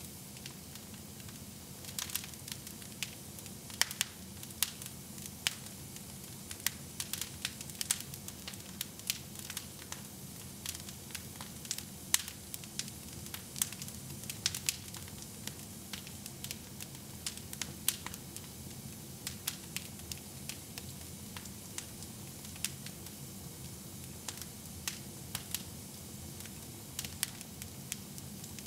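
Wood fire burning in a fireplace: irregular sharp crackles and pops, several a second, over a steady low hiss and rumble of the flames.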